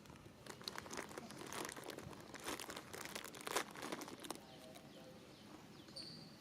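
Irregular crinkling and crackling for about four seconds, then quieter, with a short high chirp near the end.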